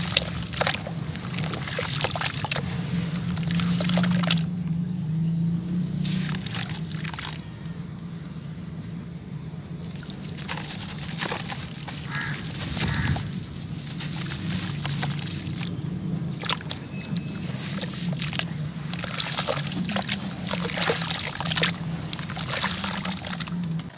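Hands sloshing and squeezing waterlogged sand-cement chunks in a basin of muddy water, with irregular splashes and trickling drips. The cement is soaked wet, so it slops rather than crunches. A steady low hum runs underneath.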